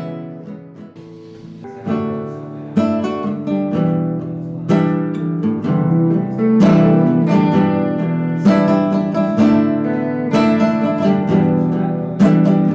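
Instrumental music: acoustic guitar strumming chords. The playing dies down about a second in, then the strumming picks up again and carries on.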